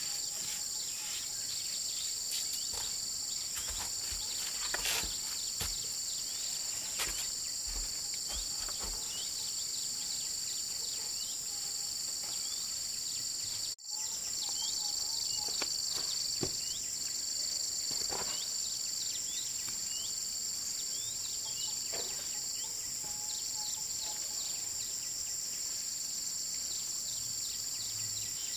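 Insects trilling steadily in two high, unbroken tones, with scattered short chirps and clicks over them and a brief dropout about halfway through.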